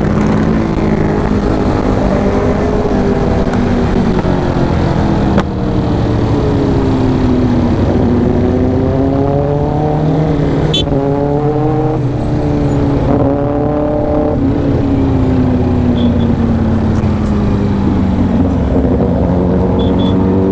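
Kawasaki Ninja 650's parallel-twin engine pulling on the move, heard from the rider's seat: the revs rise and fall several times, with a few brief breaks in the engine note about halfway through.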